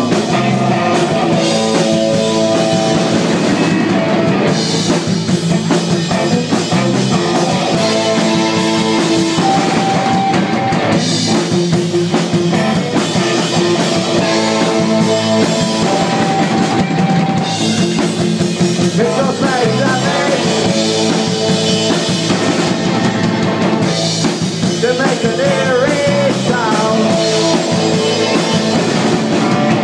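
Live post-punk rock band playing a song: electric guitar, bass guitar, drum kit and keyboard together, with a steady drum beat and sustained keyboard and guitar tones.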